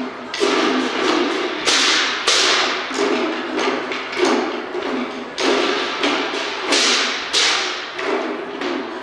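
Chinese waist drums beaten together in a steady rhythm, a stroke about every two-thirds of a second, with crashes of hand cymbals ringing on many of the beats.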